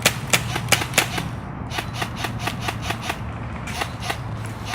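Airsoft guns firing in quick runs of sharp snapping shots, several a second, with the loudest cracks in the first second.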